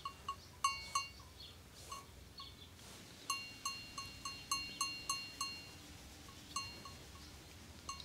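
Small metal bells ringing in quick, uneven strokes, with the ring lasting through a run of strikes in the middle.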